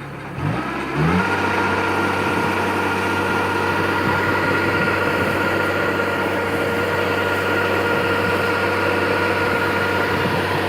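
Kubota Harvest King DC68G combine harvester's engine speeding up about a second in, then running steadily at working speed with a high, steady whine.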